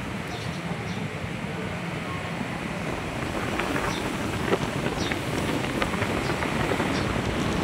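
Steady rushing background noise, with a few faint light clicks from plastic wiring connectors being handled, mostly in the middle.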